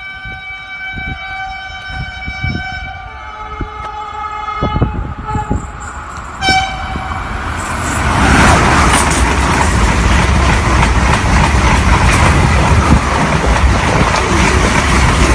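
Renfe S-130 train sounding a long horn blast as it approaches, followed by a short second toot. About eight seconds in it runs past close by, with loud rushing wheel and air noise.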